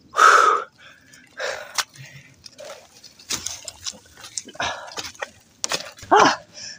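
A man breathing hard in loud, ragged breaths while carrying a heavy load of wood on his shoulder, with a short voiced groan about six seconds in. It is the panting of exertion under the weight.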